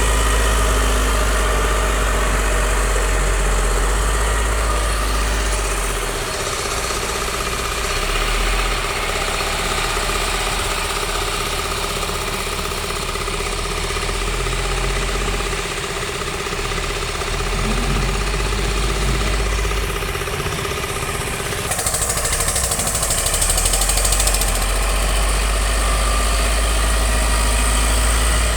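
A heavy vehicle's engine idling steadily, with a brief hiss about three-quarters of the way through.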